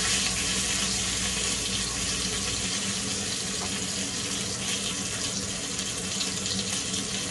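Salmon fillet frying in oil in a nonstick pan: a steady sizzling hiss.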